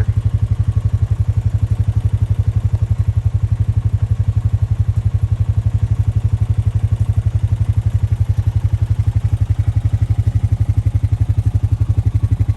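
Vehicle engine running steadily with a fast, even low pulse, unchanged throughout.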